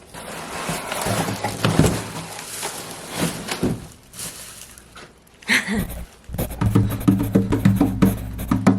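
Rustling and handling noises with scattered clicks, then from about six and a half seconds in, music with a low sustained chord and a regular percussive beat.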